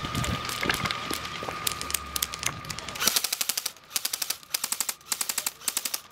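Airsoft AK-style electric rifle firing full-auto: several short bursts of rapid clicking, starting about three seconds in. Before that, scuffs and knocks of movement.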